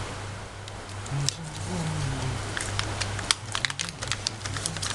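Irregular small clicks and taps of hands handling plastic RC car parts and packaging, bunched more densely in the second half, over a steady low hum.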